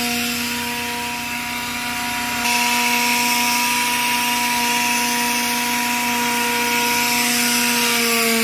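Portable in-situ crankshaft grinding machine running on a crankpin, grinding it in place: a steady motor whine over a hiss. The hiss grows louder about two and a half seconds in, and the whine rises slightly in pitch near the end.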